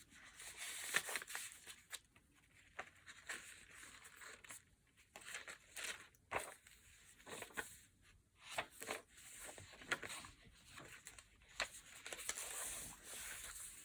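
Soft, irregular paper rustling and crinkling as old paper ephemera and the pages of a handmade junk journal are handled.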